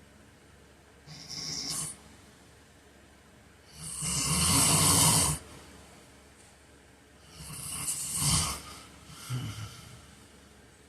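A man snoring in his sleep: a short, quieter snore about a second in, a long loud snore at about four seconds, then another snore about seven seconds in that trails off into a smaller one.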